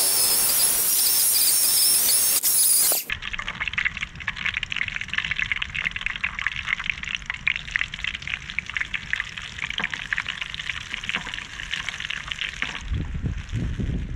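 An electric chainsaw runs at full speed with a steady high whine for about three seconds, then stops abruptly. After that, potato pieces sizzle and crackle in hot oil in a frying pan over a wood fire, a dense spitting hiss that goes on for most of the rest.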